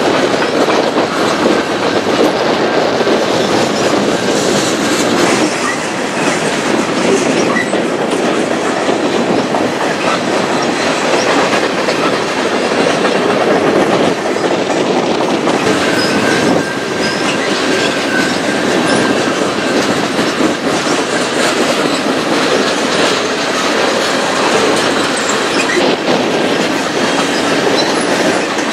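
Freight cars (covered hoppers and tank cars) rolling past close by: a loud, steady noise of steel wheels on rail, with a brief high squeal about halfway through.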